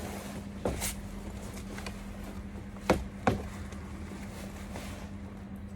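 Steady low hum from a switched-on Clark MIG welder, with three sharp knocks: one under a second in, then two close together about three seconds in.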